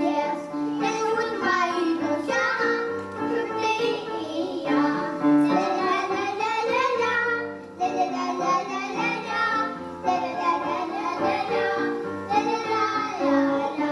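Children singing a song, amplified through microphones, with musical accompaniment.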